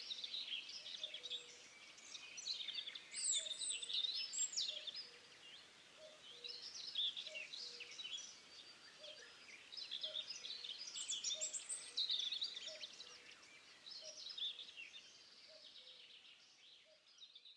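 A chorus of small birds chirping and trilling, with a faint low note repeating about twice a second underneath; it fades out near the end.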